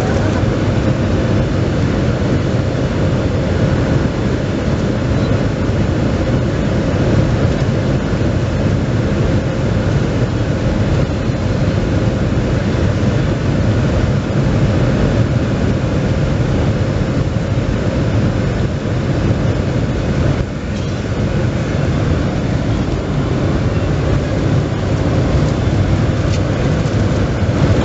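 Jet airliner engine and cabin noise heard from inside the cabin beside the wing: a loud, steady, deep rumble with a thin steady whine, while the plane is on the runway.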